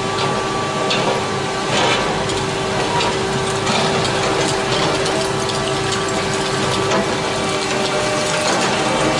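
Long-reach demolition excavator tearing into a building with its jaw attachment: masonry and roof material crunching and cracking irregularly every second or so over the steady run of the machine, with a steady hum underneath.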